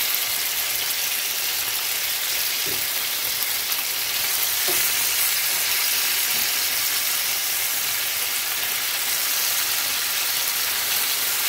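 Pork slices frying in oil in a pan: a steady sizzle.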